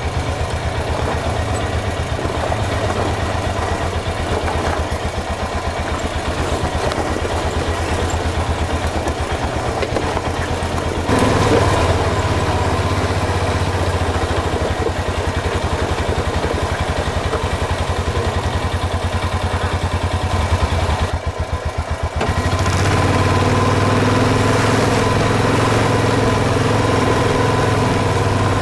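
Quad (ATV) engine running steadily while riding a rocky trail, heard from on the machine. The sound changes abruptly about eleven seconds in, and again after a short dip about twenty-two seconds in.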